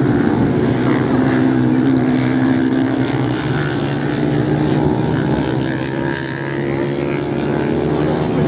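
Several off-road motorcycle engines running together as the bikes race round a sand track: a continuous, overlapping engine drone whose pitch drifts up and down a little.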